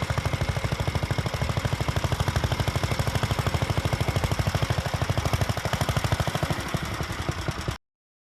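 Vintage tractor engine running with a fast, even beat. The sound cuts off suddenly near the end.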